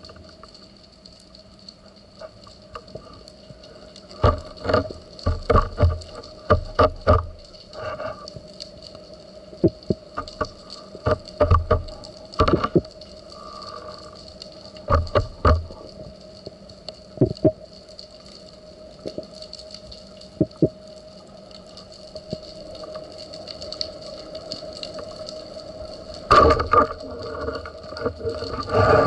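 Underwater sound heard through a camera housing mounted on a speargun: a faint steady hum with scattered sharp clicks and knocks, some in quick clusters. About three seconds before the end comes a denser, louder run of knocks and rushing.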